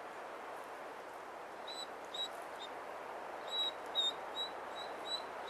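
About nine short, high-pitched calls, all at the same pitch and coming closer together in the second half, over a steady faint hiss.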